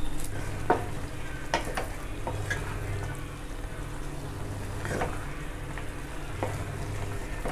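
Wooden spatula stirring vermicelli and vegetables through simmering water in a kadai: a steady bubbling sizzle, with a few knocks and scrapes of the spatula against the pan.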